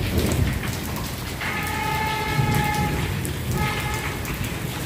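Rain falling steadily onto a wet concrete courtyard and its puddles, a continuous hiss full of small drop ticks. A steady pitched tone sounds over it twice, once for about a second and a half, then briefly.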